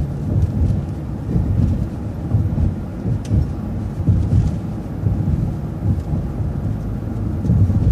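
City transit bus under way, heard from inside the cabin: a steady low engine and road drone, with a few faint ticks and rattles.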